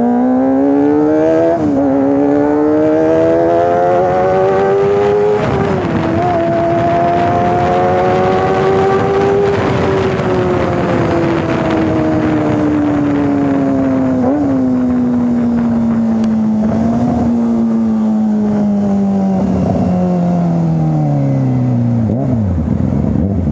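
Kawasaki ZX-25R's 250 cc inline-four engine breathing through a 3 Tech Racing Evolution aftermarket exhaust, heard from the saddle while riding. It revs up through two upshifts, about one and a half and five and a half seconds in, then rolls off with the pitch slowly falling, with short blips partway through, before dropping to low revs near the end. The aftermarket exhaust gives the normally light-sounding bike a heavier, bassy note.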